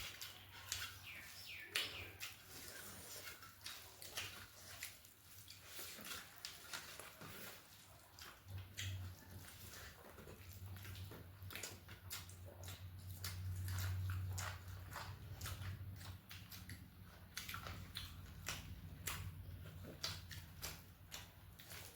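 Close-miked eating sounds: irregular chewing, smacking and small mouth clicks from someone eating a meal of rice with curry and papad, over a low steady hum that grows louder about halfway through.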